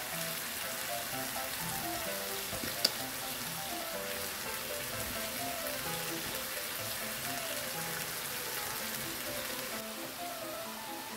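Chicken pieces, mushrooms and onions sizzling in a frying pan, a steady hiss under gentle background music, with one sharp click about three seconds in.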